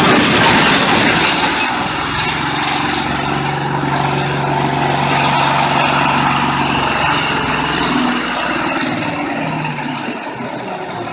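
Heavy vehicle or machinery running with a steady low engine hum under loud noisy clatter; the hum settles in about two seconds in and fades near the end.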